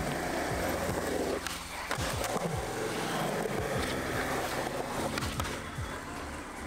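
Skateboard wheels rolling steadily over a concrete skatepark surface, with a few sharp clacks from the board.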